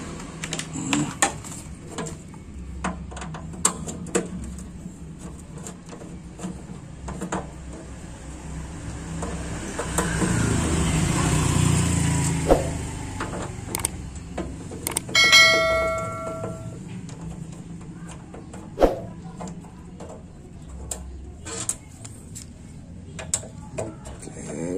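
A screwdriver works screws out of the steel top cover of a Soundstandard CA18 power amplifier, with scattered sharp clicks and taps of metal on the lid. Traffic rumbles past about ten to twelve seconds in. Midway a steady ringing tone sounds for about a second and a half, the loudest sound of all.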